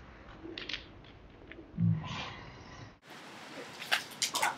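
A girl bent over, retching and spluttering as foaming Diet Coke comes back up after she took Mentos with it. The sounds come as short, scattered gags and splutters.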